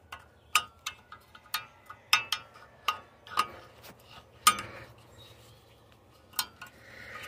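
Screwdriver tip clinking and scraping against the parking-brake shoe hardware inside a 2003 Ford Explorer's rear rotor hat while a retaining clip is pried loose. A dozen or so irregular metallic clinks, each with a brief ring, the loudest about four and a half seconds in.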